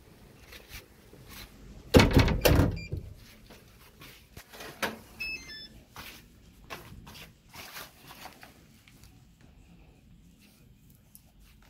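Empty plastic water bottle knocked and crinkled by a dog playing with it on a tiled floor: scattered clicks and crackles, with a loud cluster of sharp knocks about two seconds in.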